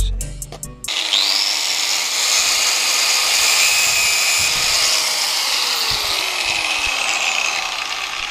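Handheld angle grinder starting up about a second in and cutting through a ribbed rubber air-intake hose with a steady, hissing grind. Its pitch falls over the last few seconds as it winds down.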